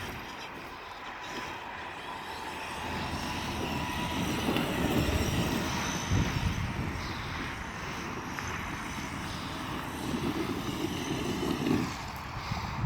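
Traxxas X-Maxx RC monster truck being driven, its electric motor whining and its tyres running over the ground, growing louder and quieter as it moves.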